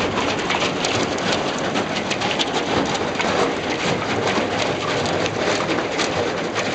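Thin canal ice crackling as a narrowboat's steel bow breaks through the frozen surface: a dense, continuous patter of many small cracks and snaps.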